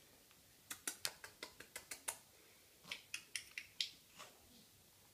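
Wicker basket cat carrier crackling in quick runs of sharp clicks: one run starting about a second in, a second about three seconds in, then a last faint click.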